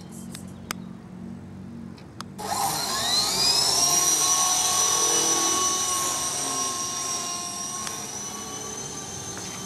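FX052 RC helicopter's motor and rotors spinning up with a rising whine about two seconds in, then running on at a steady high whine. A couple of sharp clicks come before the spin-up.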